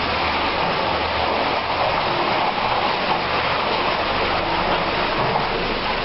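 IVAC PV500 pneumatic industrial vacuum running, with a steady, even rushing noise as it sucks water and sludge out of a mine sump.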